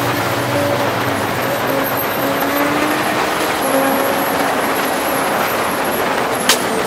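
Motorcycle riding at speed: steady engine tone under heavy wind rush, with a sharp click about six and a half seconds in.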